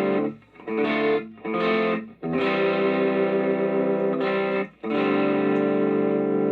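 Chapman electric guitar on its bridge pickup, played through a Donner overdrive pedal with the drive and treble turned up into a Spark amp. Distorted chords are played with short breaks between them, and the last chord near the end is left to ring out.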